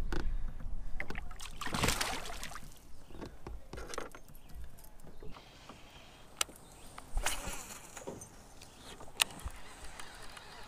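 Handling sounds in a kayak while fishing: a short rushing noise about two seconds in, then scattered sharp clicks and knocks of rod, reel and hull.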